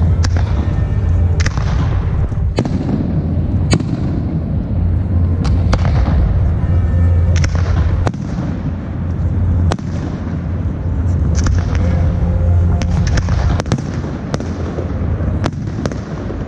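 Fireworks display: a dense barrage of sharp bangs from bursting shells over a continuous low rumble.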